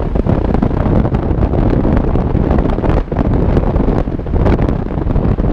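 Loud, choppy wind buffeting on the microphone of a camera riding on a Nissan Xterra as it drives over sand dunes, with the vehicle's engine running underneath.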